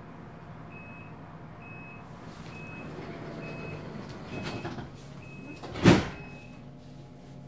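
Inside a train car, the door-closing warning sounds as a short high beep about once a second, seven times, over the steady running rumble. Near the end the sliding doors shut with a loud thud.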